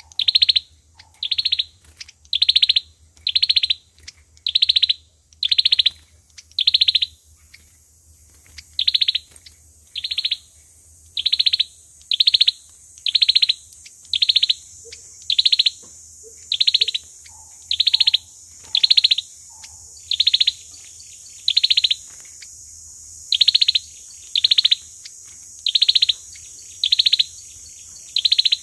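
A sâu dừa bird's call: one loud, high chirp repeated about one and a half times a second, in long runs broken by a couple of short pauses. A few fainter, lower notes come in between the chirps about two thirds of the way through.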